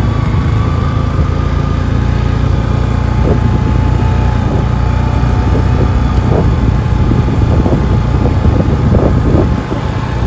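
Can-Am Outlander 650 ATV's V-twin engine running steadily while riding a woods trail, with a thin steady whine above the engine note and scattered knocks and rattles from the machine.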